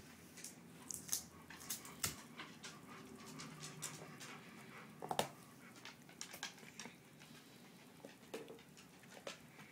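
Dog breathing faintly with its mouth open, with scattered soft ticks and taps, the sharpest about one, two and five seconds in.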